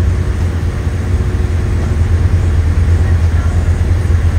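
A boat's engine running steadily under way: a loud, even, low drone with a steady hiss above it.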